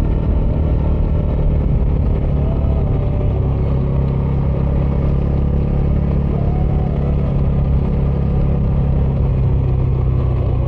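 Bajaj Dominar 400's single-cylinder engine and stock dual exhaust running under way at a mostly steady engine speed, with slight rises and dips in pitch a few times.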